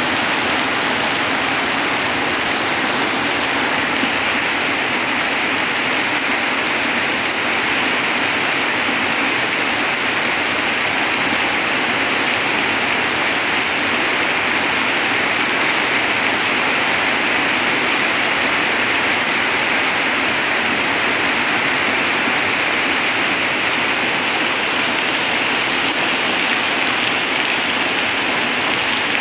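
Heavy rain falling steadily through tree leaves and onto wet ground, an even, unbroken hiss with no let-up.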